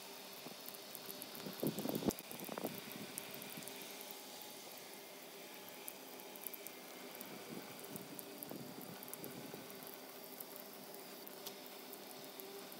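Water pouring heavily into a plastic La Crosse rain gauge and splashing as it overflows and spills down its sides, a steady spattering rush. A louder burst of splashing about two seconds in.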